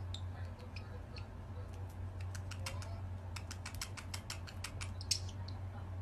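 Small blue parrot (a parrotlet) making a fast run of dry beak clicks, densest in the middle, with one short high chirp near the end. A steady low hum runs underneath.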